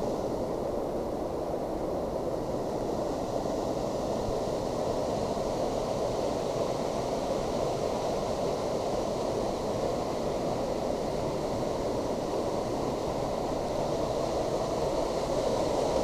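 Steady roar of a waterfall's falling water, an even rushing noise that holds constant throughout.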